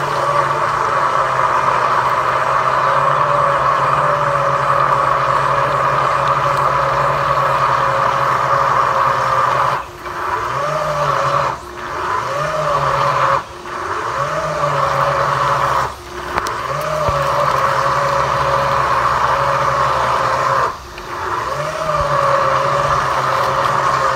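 A motor running steadily. About five times, at roughly 10, 11.5, 13.5, 16 and 21 seconds in, the sound drops off abruptly, then climbs back up in pitch to its steady speed.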